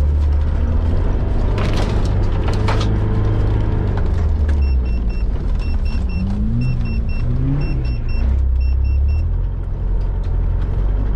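Mitsubishi Pajero off-road car's engine heard from inside the cabin, a deep steady drone that rises and falls in pitch twice around the middle as the throttle is worked. From about four to nine seconds in, a short high electronic beep repeats in quick groups of three over the engine.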